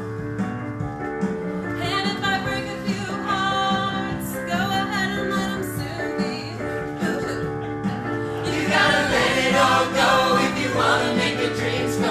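Live musical-theatre song number: a cast of singers performing with instrumental backing, the voices rising into louder group singing about two-thirds of the way through.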